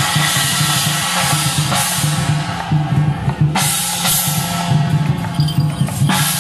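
Loud temple-procession percussion music for a Guan Jiang Shou troupe: drums keeping a steady beat, with a gong and cymbals ringing over it.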